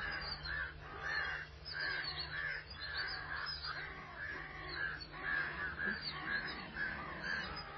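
Birds calling in a steady series of short repeated notes, about two a second, over a low steady hum.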